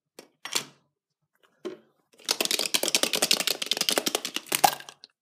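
Dense crinkling and crackling of plastic, beginning about two seconds in and lasting about three seconds, as a plastic surprise egg is handled and opened.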